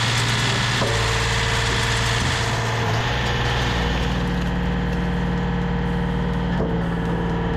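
Firewood processor's engine and hydraulic power unit running steadily, its drone stepping in pitch a little under four seconds in. Two faint knocks sound, about a second in and near the end.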